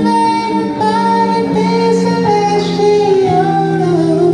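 Live music: a man singing long, held, high falsetto notes over sustained, slowly changing chords, the lower notes shifting about a second in and again near the end.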